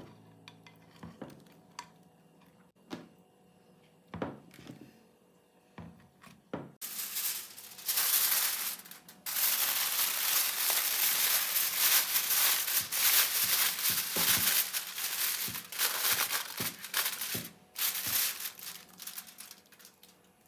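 A few light knocks of utensils, then about seven seconds in food starts sizzling loudly in a hot frying pan, fading away near the end.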